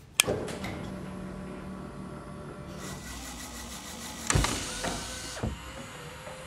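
A push-button on a desk control box clicks, and a small electric motor starts humming steadily. About three seconds in, a louder mechanical whirring joins with two clunks: a film projector starting to run.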